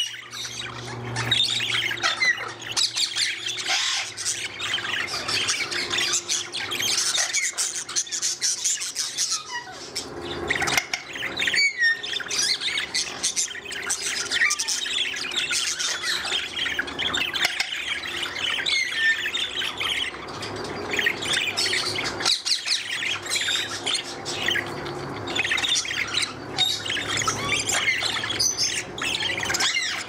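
Budgerigars chattering and warbling without a break: a dense stream of short chirps and squawks mixed with a few gliding whistles.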